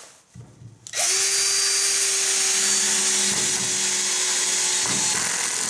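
AEG BS14 G3 Li 14 V cordless drill-driver driving a 50 mm self-tapping screw into a wooden beam on torque clutch setting ten. The motor runs steadily from about a second in and stops abruptly near the end.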